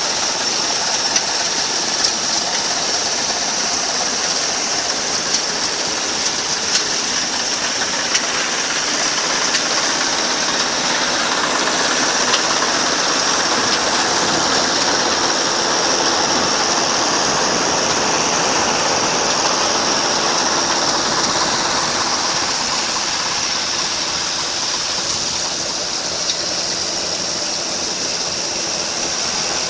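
Combine harvester running steadily while harvesting paddy: a loud, even mechanical noise with a few small clicks.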